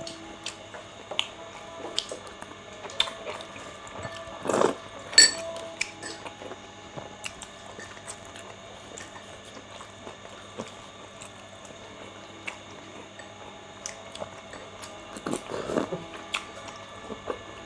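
Two people eating chicken momos: quiet chewing with scattered small clicks, and a louder burst of noise about four to five seconds in.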